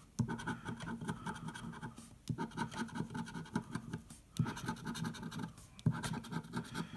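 Metal bottle opener scratching the scratch-off coating from a $20 Mega Cash lottery ticket. It goes in four spells of scraping with short breaks between them.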